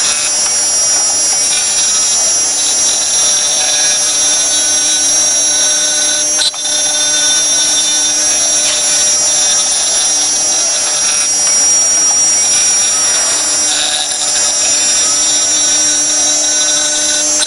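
CNC router spindle running at high speed, its bit cutting into a rotating wooden workpiece held on the machine's rotary fourth axis: a steady high whine made of several held tones over a rough cutting noise. The sound dips briefly about six and a half seconds in.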